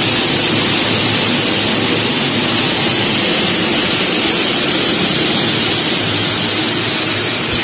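Pine nut shelling machine running: a loud, steady noise with a low hum underneath.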